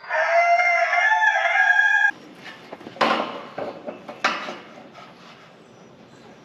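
A rooster crows loudly for about two seconds and cuts off suddenly. After it, a corrugated metal roofing sheet knocks and rattles as it is handled, with two sharp knocks about a second apart.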